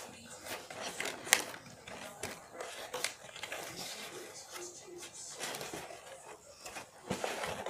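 Scissors snipping and scraping at cardboard doll packaging, with scattered clicks and rustling of the box; one sharp click a little over a second in is the loudest.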